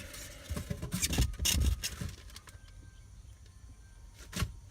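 Handling noises: a few sharp clicks and short rustles in the first two seconds, then a quieter stretch and one more sharp click near the end.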